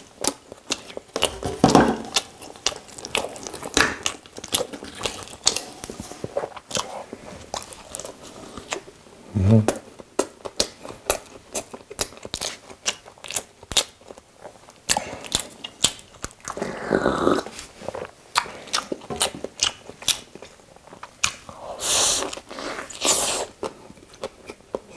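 Close-up biting and chewing of an Isaac Toast ham-and-cheese toast sandwich, with many small wet mouth clicks and a crunch of the toasted bread. A few louder, longer mouth sounds come at irregular moments.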